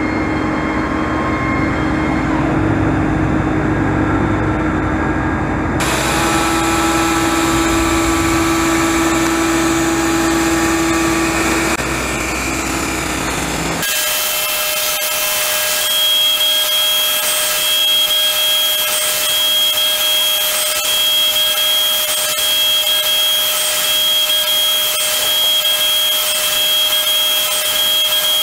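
UDM-2216 three-axis CNC machining centre milling a pocket in a metal plate with an end mill: steady spindle and cutting noise. It changes abruptly about six seconds in and again about halfway through, after which it is a steady high whine with a shrill tone over it.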